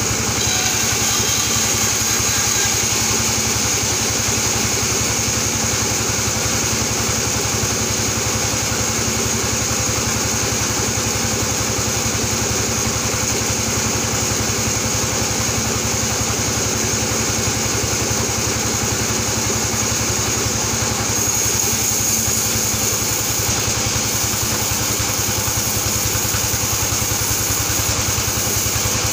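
Sawmill band saw running steadily while a plank of albasia wood is fed through the blade. It makes a continuous machine drone with a fine rapid pulse and a high steady whine.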